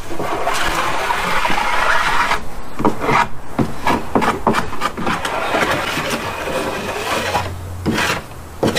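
Sandpaper rubbing over pressure-treated lumber in quick back-and-forth strokes: the door frame being sanded smooth.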